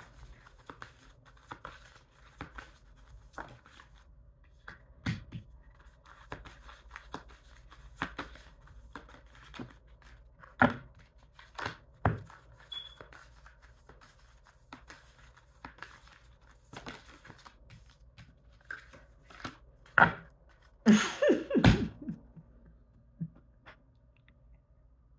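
Tarot cards being handled and shuffled: scattered light taps and flicks of card stock, with a louder clatter of handling about 20 to 22 seconds in.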